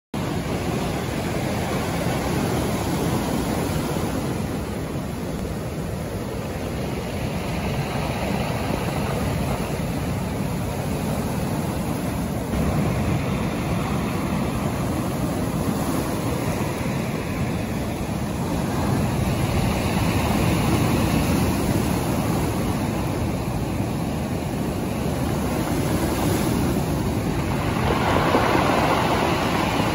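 Rough sea surf breaking and washing up over a pebble beach, a steady rushing that swells as each wave comes in, loudest near the end.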